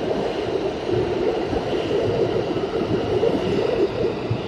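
R160 subway train moving along the station platform: a steady rumble of wheels on rail, with a faint high whine above it.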